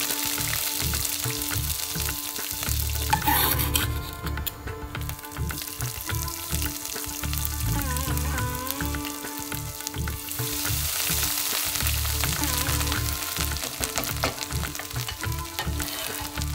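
Grated ginger and chopped green chili sizzling as they fry in hot oil with cumin seeds in an enamel pot, over soft background music.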